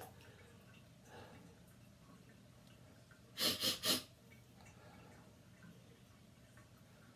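A person sniffing three times in quick succession through a tickling nose, about three and a half seconds in, against quiet bathroom room tone.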